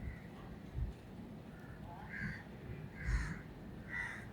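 Three short calls, like a bird's, about a second apart, over a few low thumps.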